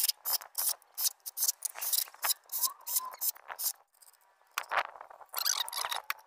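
Hand ratchet clicking in quick clusters as the valve cover bolts are run down and tightened, with a short pause about four seconds in.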